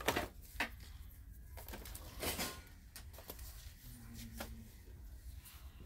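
Thrift-store room sound: a steady low hum with scattered light knocks and rustles, the loudest right at the start and another a little over two seconds in.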